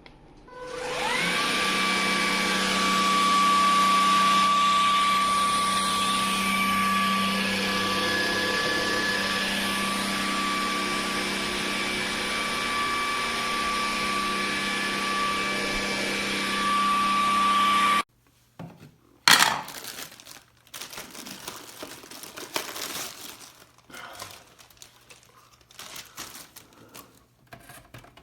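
Vacuum cleaner motor starting with a quick rising whine, then running steadily with a high whine over a rushing air noise. It cuts off abruptly, followed by a few clicks and handling knocks.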